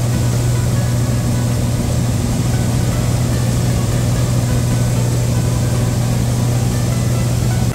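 Steady drone of a light airplane's engine and propeller, heard from inside the cabin in flight.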